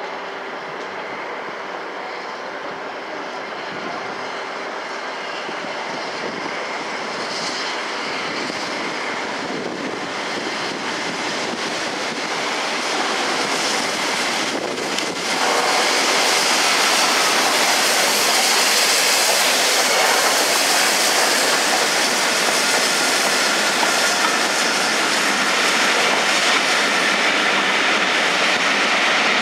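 Peppercorn A1 Pacific steam locomotive 60163 Tornado and its train of coaches running past on the rails. The sound builds as the engine comes near and grows sharply louder about halfway through as it passes, then the coaches roll by.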